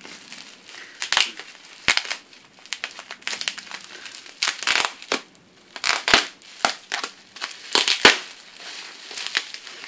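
Hands crinkling and crushing white gift wrapping around a small present, in irregular crackly bursts.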